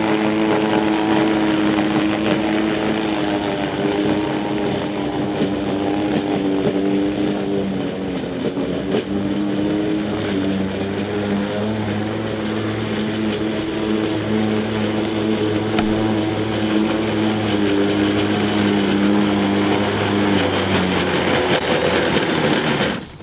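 DeWalt FlexVolt cordless battery push mower running with its blade cutting grass: a steady electric motor-and-blade hum whose pitch sags briefly about eight seconds in as it works under load. The sound cuts off abruptly at the very end.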